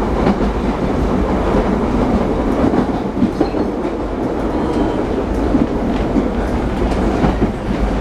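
Steady rumbling and rattling of a moving vehicle heard from inside, with scattered small clicks and knocks.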